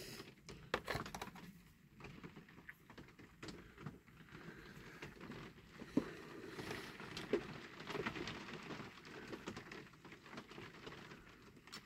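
Faint, scattered light clicks and taps of small hand handling: a flat black tool being picked up and set against the base of a diecast toy car. The sharpest click comes about six seconds in.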